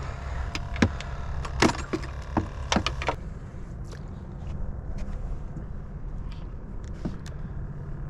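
A quick string of sharp knocks and clatters as fishing gear (rod, landing net, tackle bucket) is handled on a small skiff's deck, over a low steady rumble. After about three seconds only the rumble is left, with a few faint clicks.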